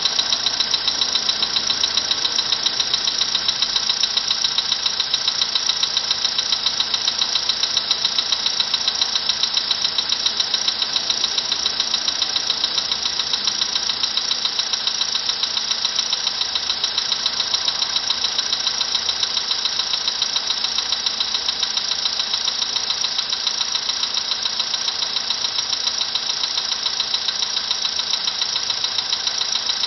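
Volkswagen engine running at idle with a regular, rapid knocking that keeps time with the engine.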